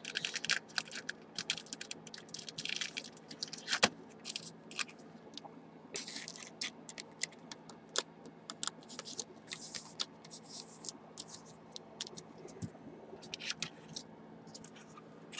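Trading cards and hard clear plastic card holders being handled by gloved hands: an irregular string of light clicks, taps and scrapes, busiest from about six to ten seconds in.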